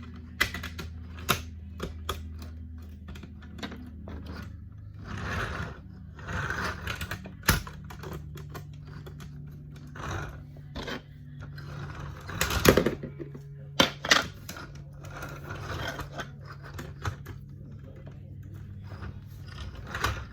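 Plastic LEGO bricks clicking and clattering as pieces are handled and pressed together: scattered sharp clicks with brief rustling, and a louder cluster of knocks about two-thirds of the way through.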